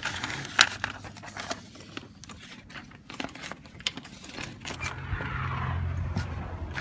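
Front storm door being worked open, with latch clicks and handling scrapes, one sharp click about half a second in. A steady low hum with a hiss comes in after about four and a half seconds.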